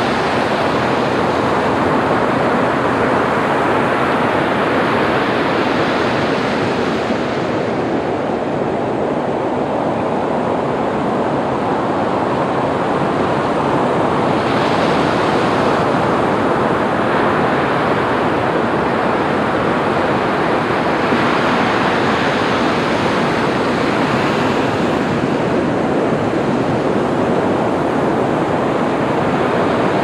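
Ocean surf washing onto a sandy beach: a continuous rush of breaking waves that swells and eases every several seconds.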